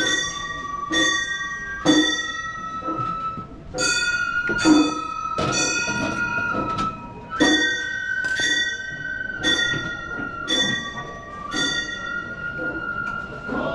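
Gion-bayashi festival music: a bamboo transverse flute plays long held notes that step between pitches, over small hand-struck brass gongs (kane) clanging about once a second with a bright, ringing tone.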